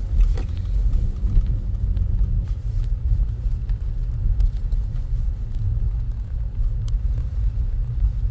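Low, steady rumble of a car's tyres and engine heard from inside the cabin while driving on a snowy street, with a faint hum that fades out about two and a half seconds in and a few scattered light clicks.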